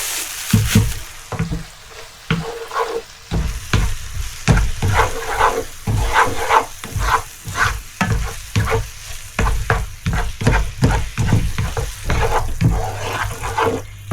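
Pasta and mushroom sauce being stirred in a frying pan, the utensil scraping against the pan in repeated strokes, a few a second, over a light sizzle.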